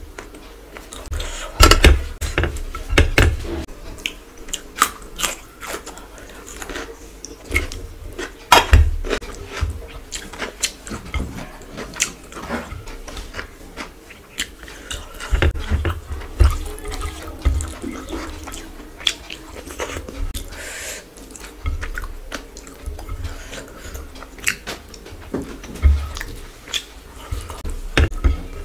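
Close-miked eating sounds: wet chewing and lip smacks, irregular clicks and squelches, while fingers mix rice with fish curry on a plate.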